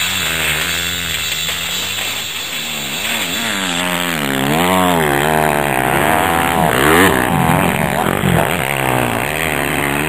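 Motocross bike engine revving up and down again and again as the throttle is worked over the track's bumps and jumps, getting louder about four seconds in as the bike comes closer.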